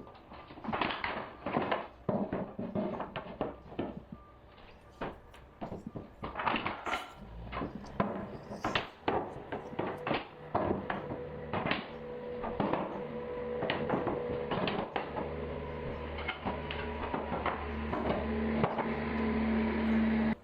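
Hardwood floorboards being handled, set down and knocked into place, making irregular wooden knocks and clatter. About a third of the way in, a steady low machine hum starts and grows louder toward the end.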